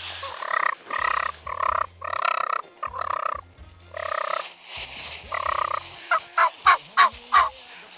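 Wild turkeys calling: a run of repeated half-second calls, then a quick series of five short, sharp, loud calls near the end.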